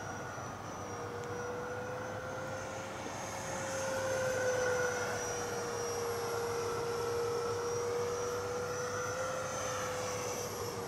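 Electric ducted fan of an FMS Futura V2 80 mm RC jet, powered by a 6S battery, whining steadily during a fly-by. The whine swells about four seconds in and drops slightly in pitch as the jet passes.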